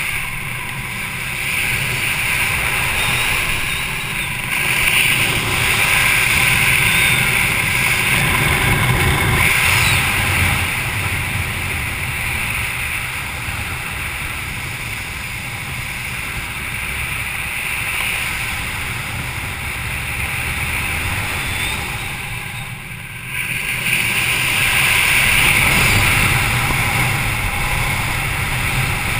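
Wind rushing over a GoPro's microphone during parachute flight under an open canopy, a steady rumbling hiss that swells and eases, with a brief lull about three-quarters of the way through.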